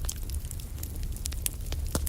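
Campfire crackling: irregular pops and snaps over a low steady rumble.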